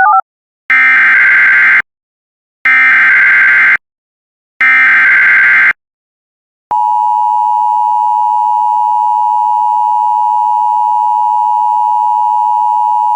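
Emergency Alert System SAME header: three one-second bursts of raspy digital data tones with short gaps between them. About seven seconds in, the steady two-tone EAS attention signal (853 and 960 Hz) starts and holds without change, marking the start of a new alert.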